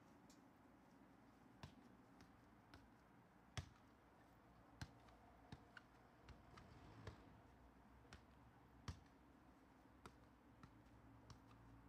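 Faint taps of a soccer ball being juggled off knees and feet, a dozen or so irregular touches about a second apart, over a quiet background.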